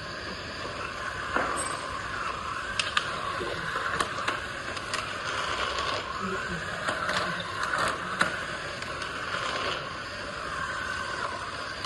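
Remote-control magnetic sweeper running on its small electric drive motors, a whine that wavers up and down in pitch, with scattered sharp clicks and scrapes.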